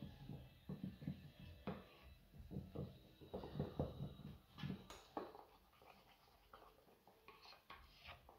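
Spoon stirring a thick potato-and-flour paste in a bowl: quiet, irregular scraping and clicking against the bowl's sides, growing fainter after about five seconds.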